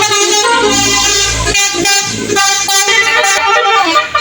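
Old-style telolet horns on Indonesian buses, the multi-trumpet air horns sounding several notes at once. The notes change in steps every half second or so, playing a short tune.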